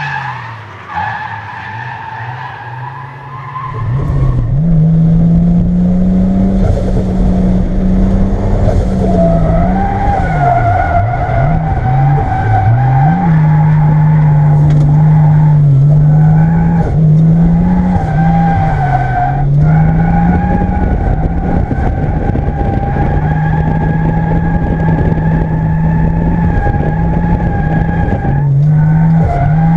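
Toyota Supra MK3 Turbo's 7M-GTE turbocharged straight-six pulling hard while the tyres squeal and skid through a drift. It is quieter for the first few seconds and loud from about four seconds in, with the engine note dropping and climbing again several times.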